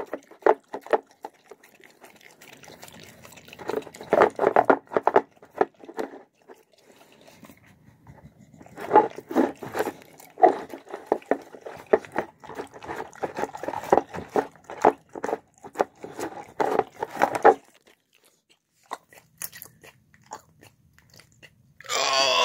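A dog eating soft shredded chicken and rice from a bowl: quick wet chewing and biting clicks in runs, with short pauses, stopping a few seconds before the end. Near the end there is one short, loud burst of noise.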